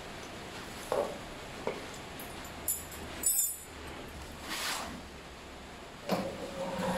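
Handling noises from a brush cutter's aluminium shaft and its fittings being moved about: a few light knocks and clinks, a short crackle in the middle, a brief scrape, and a louder knock near the end.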